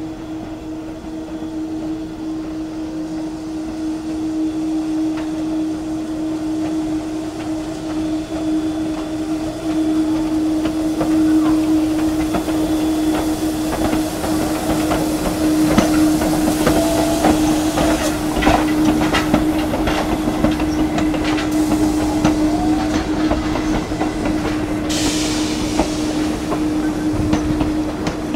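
Steam-hauled passenger train (Chichibu Railway's C58 steam locomotive and coaches) arriving slowly at a station, growing louder as it nears, with wheels clicking over the rail joints and a steady low hum. A burst of steam hiss comes near the end.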